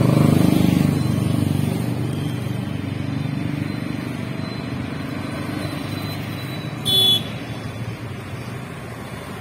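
Road traffic: a group of motorcycles passes close by, loudest in the first second, then steady traffic noise from passing vehicles. A brief vehicle horn toot sounds about seven seconds in.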